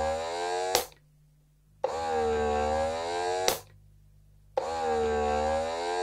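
Momcozy double electric breast pump running at its maximum suction setting. Its motor whines in repeating strokes, dipping and rising in pitch, and each stroke ends in a sharp click followed by a short pause, about every two and three-quarter seconds.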